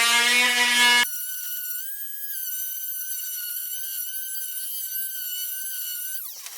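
Electric sander running dry on a cast-iron saw table: its motor spins up into a steady hum, then from about a second in gives a high steady whine that drops in pitch near the end.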